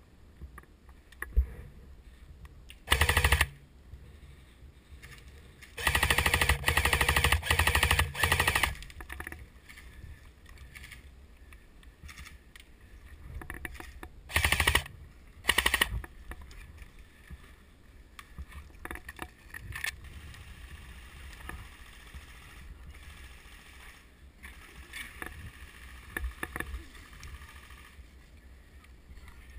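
Airsoft rifle firing full-auto bursts of BBs: one short burst about 3 seconds in, a longer string of bursts around 6 to 8 seconds, then two short bursts near the middle. Quiet rustling in between.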